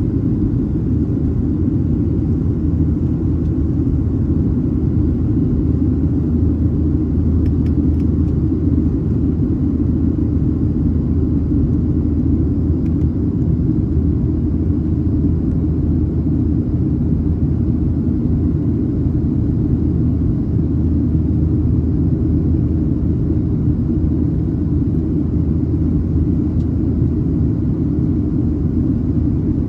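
Steady low rumble inside a jet airliner's cabin in flight: engine and airflow noise heard from a window seat over the wing.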